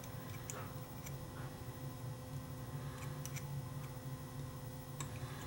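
Faint small clicks and ticks as a metal pick works a thin rubber drive belt onto the pulleys of a Sony WM-10 Walkman cassette mechanism, a few at a time, over a steady low hum.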